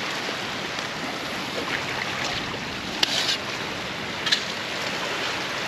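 Steady rushing wind noise on the microphone. Short scrapes, typical of a shovel in soil, come about three seconds in and again just after four seconds.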